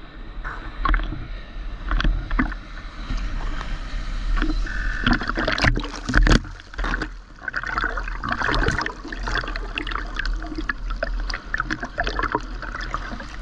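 Seawater sloshing and splashing around a GoPro camera in its waterproof housing at the surface, with irregular gurgles and small pops as it bobs in and out of the water. A heavier splash washes over it about six seconds in.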